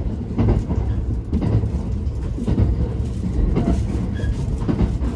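Limited Express Thunderbird running at speed, heard inside the passenger car: a steady low rumble of wheels on rail with short knocks about once a second.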